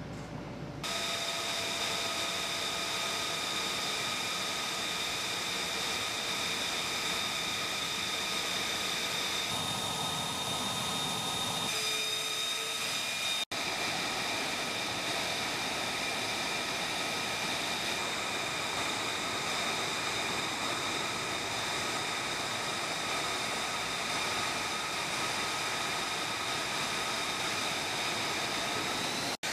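F-35B Lightning II jet engine (Pratt & Whitney F135 turbofan) running on the ground: a steady rushing noise with a high-pitched turbine whine held on several steady tones. The tones shift a little about ten and twelve seconds in, and there is a sudden break about halfway through.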